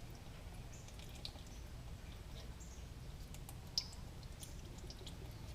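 Faint, scattered drips of engine oil draining from a Subaru WRX's loosened oil filter, over a low steady hum. One sharper tick comes nearly four seconds in.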